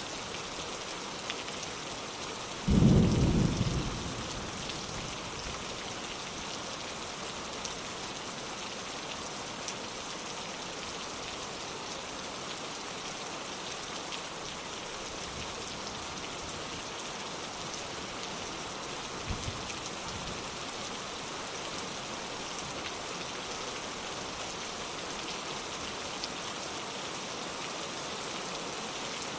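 Steady rain falling, with a sudden clap of thunder about three seconds in that fades within a second or so, and a much fainter low rumble of thunder about two-thirds of the way through.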